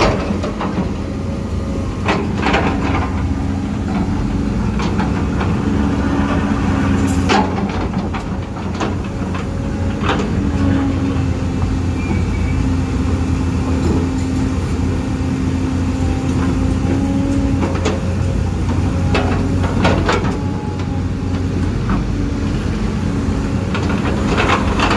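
Huina 1550 RC excavator's electric motors and gearboxes whining as the arm and bucket work, over a steady low hum. The whine starts and stops several times, with scattered clicks and knocks.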